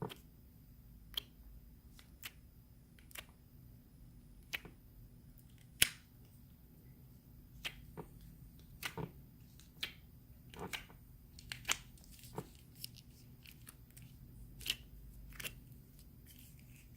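Fingers poking slime: faint, short clicks and squishes at irregular intervals.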